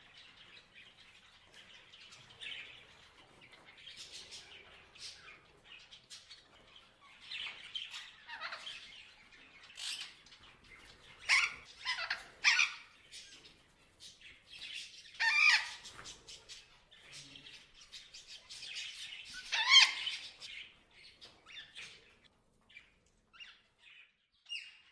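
Parrots chirping and squawking in a chorus of short, irregular calls, with louder bursts of squawks about halfway through and near the end.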